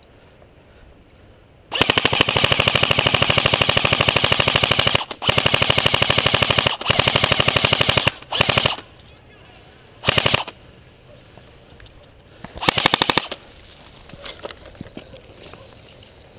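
M4-style airsoft electric rifle firing on full auto in rapid rattling bursts. A long burst of about three seconds comes first, then two bursts of about a second and a half, then three short bursts with pauses between them.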